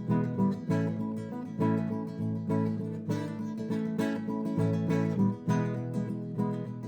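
Background music played on acoustic guitar, with regular strummed and plucked chords.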